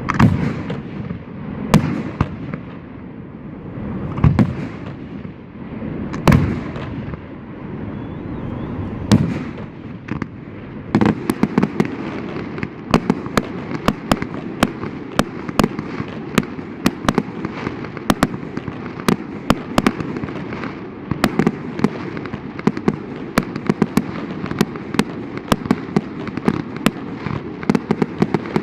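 Fireworks display: separate bangs of aerial shells a few seconds apart with rolling rumble, then from about eleven seconds in a dense, rapid barrage of sharp cracks and booms over a continuous rumble.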